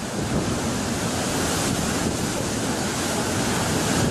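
Storm wind and heavy sea: a steady rush of wind and breaking, spray-blown waves, with wind buffeting the microphone.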